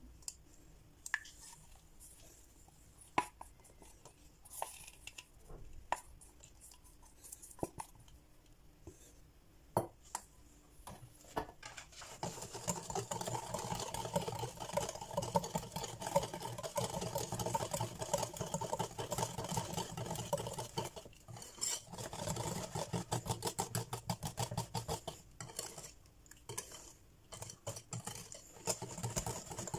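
Wire whisk beating brownie batter in a glass bowl: fast, regular clinking and swishing of the wires against the glass as melted chocolate is whisked into the egg-and-sugar mixture, starting about halfway in with a short pause partway. Before that, only scattered light clinks and taps.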